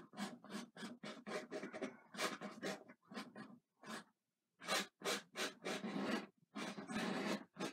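Palette knife scraping oil paint onto a canvas in a run of short, irregular strokes, with a brief pause about halfway.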